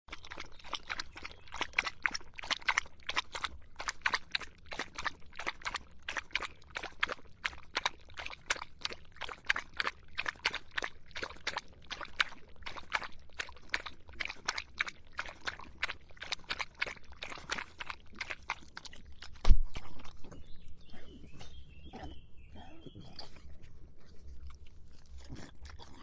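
A dog lapping water, quick wet laps at about three to four a second. About three-quarters of the way through comes a single sharp knock, the loudest sound, after which the laps turn sparse and uneven with a brief thin high tone.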